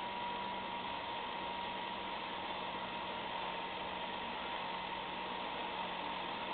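Robo Kitty 2000 self-cleaning litter box running its cleaning cycle, its globe slowly rotating: a steady motor hum over an even hiss.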